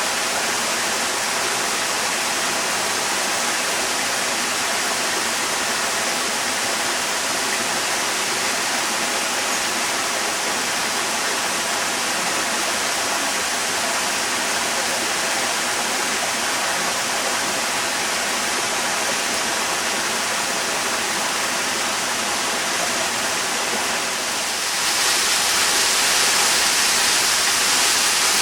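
Waterfall rushing steadily, the sound of falling water, getting a little louder and brighter near the end.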